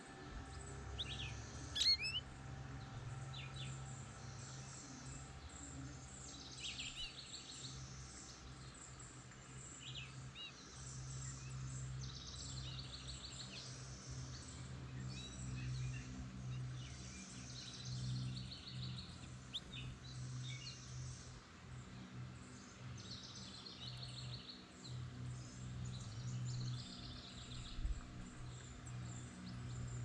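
Songbirds chirping in short trills repeated every couple of seconds, over a steady low hum. A sharp click sounds about two seconds in.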